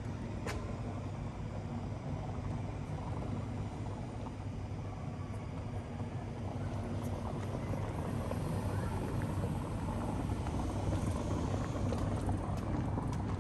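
Steady low rumble of city traffic, with a single sharp click about half a second in.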